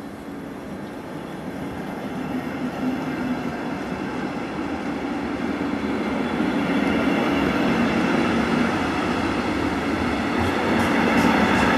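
CFL double-deck electric train approaching and running past at speed, its rumble and rail noise growing steadily louder, with a few sharp clicks near the end.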